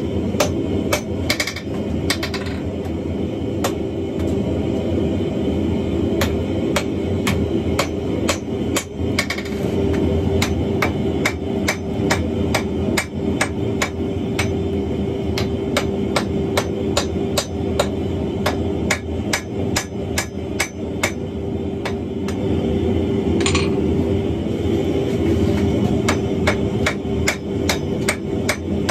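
Hand hammer striking a glowing wrought-iron billet on a steel anvil, a steady run of blows at about two a second, over a continuous rushing noise.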